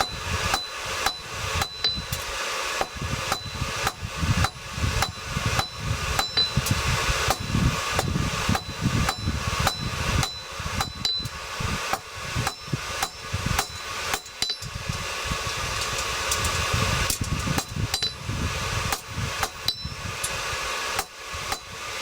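Hand hammer striking hot steel on an anvil in a steady rhythm of about two to three blows a second, each blow with a short high ring from the anvil. The end of a steel bar is being drawn out while forging a J hook.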